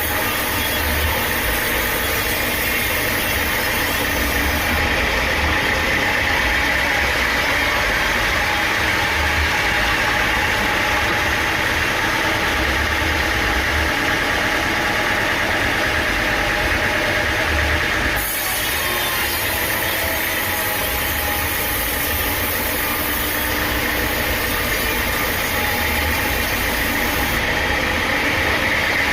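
Sawmill machinery running steadily, a continuous engine and saw noise with a low rumble and a hissing whine on top. The sound changes abruptly about two-thirds of the way through.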